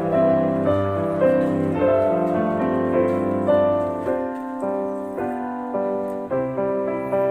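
Background piano music, a slow, even run of notes over held chords.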